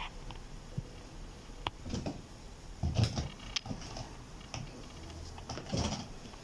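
Kitten playing on a rug: scattered light thumps, taps and rustling from its paws, with the loudest bumps about three seconds in and near the end.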